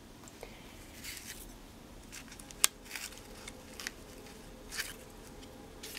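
Faint rustling and light scraping of hands handling a paper-flower card and ribbon, with one sharp click about two and a half seconds in.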